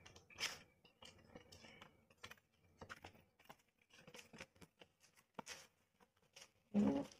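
Cardboard box flap being opened and the box handled, with light scrapes, taps and crinkles as a plastic-wrapped packet slides out. There is a short, louder sound near the end.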